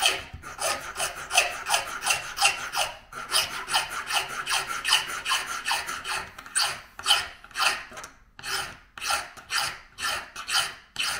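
Small hand file rasping back and forth across the base of a model railroad rail held in a wooden jig, about three strokes a second, with brief pauses about three seconds in and near eight seconds. The rail's base is being filed down so the guard rail will sit lower on the ties.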